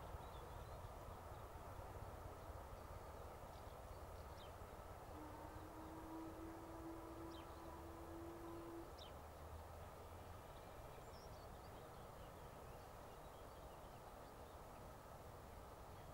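Faint, distant steam locomotive working a passenger train, a low steady rumble. Its whistle sounds one long, low, steady note about five seconds in and holds for nearly four seconds. A few small bird chirps are heard faintly.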